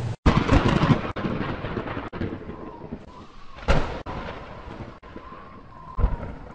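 Thunderstorm sound effects: rumbling thunder over a rain-like hiss that starts right after a brief cut-out, with a sharp thunderclap about four seconds in and another near the end.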